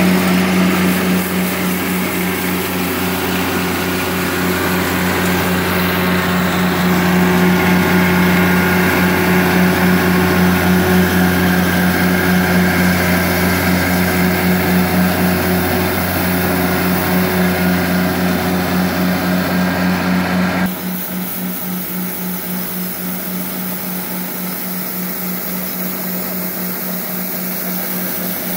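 Walker MD mower's Kubota D722 three-cylinder diesel running steadily while its front rotary broom sweeps the asphalt. About twenty seconds in, the sound drops suddenly in level and loses much of its hiss, while the engine note carries on.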